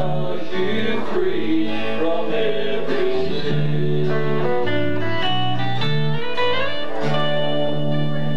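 Bluegrass band playing a song, a voice singing over strummed acoustic guitars and sustained bass notes.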